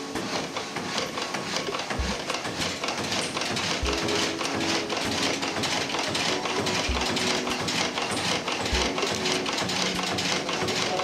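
Water-powered frame sawmill running: a fast, even mechanical clatter of the reciprocating saw frame, with a low thud about every two to three seconds.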